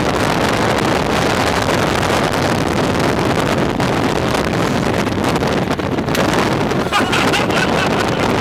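Heavy wind rush buffeting the microphone through an open car window at highway speed, mixed with road noise, as a latex condom is held out and inflated by the airstream. A short sharp sound about seven seconds in, where the condom bursts.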